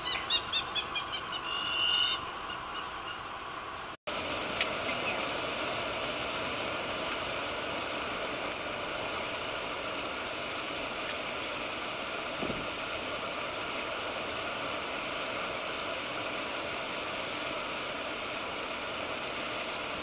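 A quick run of high-pitched repeated calls that fades within the first second, followed by a short held call about two seconds in. After an abrupt cut near four seconds, a steady outdoor bush ambience with a constant hiss.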